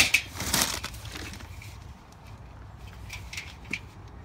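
Cardboard packaging scraping and rustling as the steel mesh cage of a garden cart is pulled out of its box, loudest in the first second and a half, followed by a few light clicks of the metal frame being handled.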